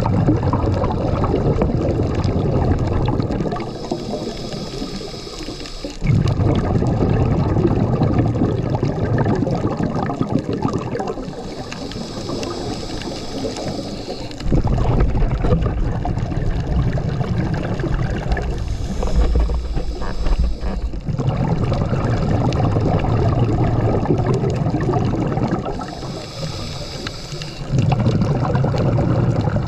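Scuba diver breathing through a regulator underwater: long stretches of exhaled bubbles rumbling and gurgling, broken three times by a shorter, quieter hiss of inhaled air through the regulator.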